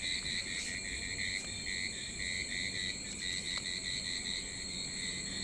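Crickets chirping steadily in a night-time chorus: a high continuous trill with a lower band pulsing in short, rapid chirps. A couple of faint clicks.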